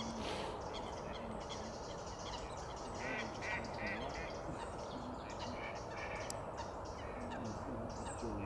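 Geese honking on the water, repeated low calls throughout, with a short run of higher bird calls about three seconds in, over a steady outdoor rush of background noise.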